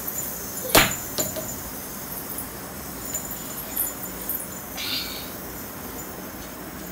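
A sharp knock about a second in, then a few light clicks and a brief rustle as toys are picked up and handled.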